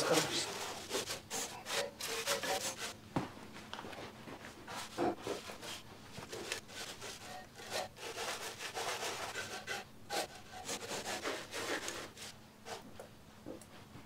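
Straw broom sweeping sawdust off the painted steel band-wheel housing of a Wood-Mizer LX55 sawmill: irregular scratchy brushing strokes, which thin out near the end.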